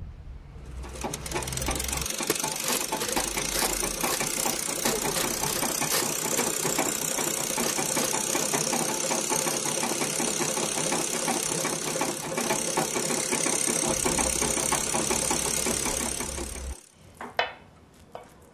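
A machine running with a fast, steady rattle that cuts off abruptly near the end.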